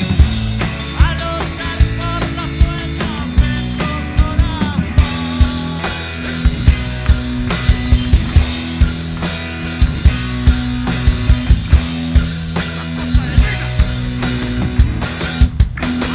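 A rock band playing live: electric guitars and bass over a drum kit with steady, regular beats.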